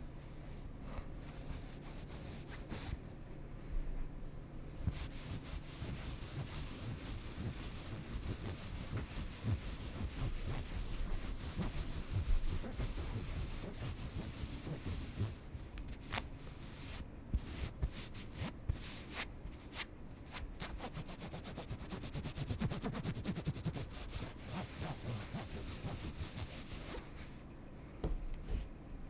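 Close-miked rubbing and scratching in a steady stream, with runs of small sharp clicks and taps in the second half.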